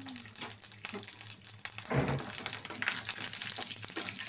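Tempering spices (mustard seeds, cumin, dal and dried red chillies) crackling and spluttering in hot oil in a pan, a fast irregular popping over a hiss. A louder knock about two seconds in.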